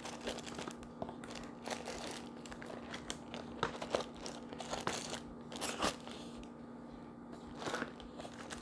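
Faint rustling and crinkling of paper and packaging, with scattered light clicks and taps, as items are handled and set into a box.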